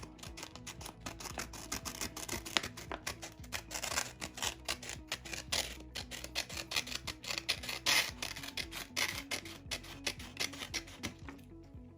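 Small scissors of a Victorinox Classic Swiss Army knife cutting through paper in a run of short snips with paper rustle, over quiet background music.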